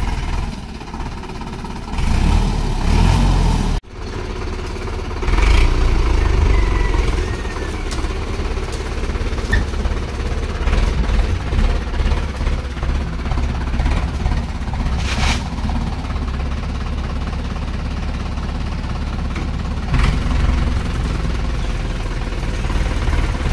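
Sonalika 750 DI RX tractor's diesel engine running steadily, with a sudden brief break about four seconds in, after which it runs louder.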